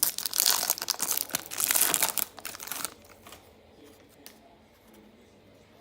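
Foil wrapper of a hockey card pack crinkling and tearing as it is ripped open, for about three seconds, then only faint handling sounds with a small click.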